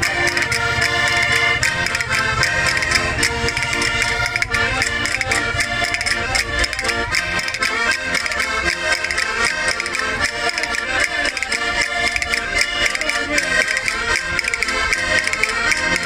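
Several diatonic button accordions (Portuguese concertinas) playing a traditional tune together, with a steady beat.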